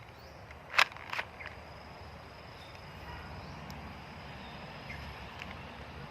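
Two sharp clicks about a second in, less than half a second apart, from a blue plastic toy gun being handled, then faint small ticks over low background noise.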